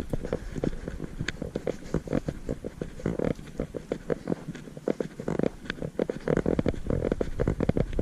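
A rapid, irregular run of dull knocks and thumps, several a second.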